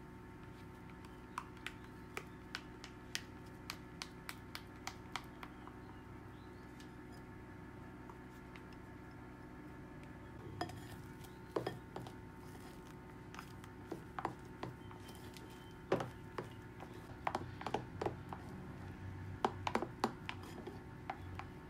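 Spatula scraping egg-yolk batter out of a small bowl into a glass bowl of meringue and then folding the mix, with light clicks and taps of the spatula on the bowls. The taps are faint at first and louder and more frequent in the second half. A steady low hum runs underneath.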